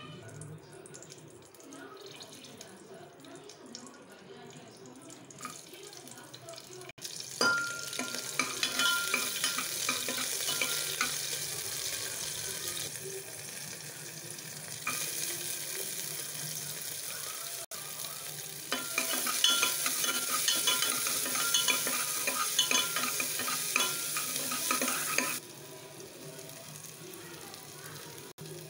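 Mustard seeds and chopped shallots frying in hot oil in an aluminium pressure cooker. It is quiet at first, then loud sizzling and crackling breaks in suddenly about seven seconds in, swells again later, and cuts off abruptly a few seconds before the end.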